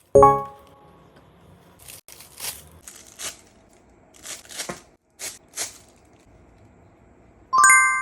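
Several short bursts of crinkling and tearing packaging from the unboxing of an action figure. They fall between a loud ringing hit right at the start and a bright ringing ding near the end.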